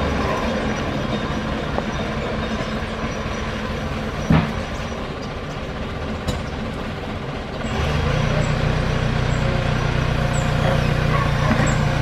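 A JCB backhoe loader's diesel engine running steadily, then revving up and growing louder about eight seconds in. A single sharp knock about four seconds in.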